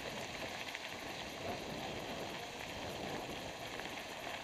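Mountain bikes riding on a dirt forest track: a steady rush of tyre and riding noise with a light crackle of grit under the wheels.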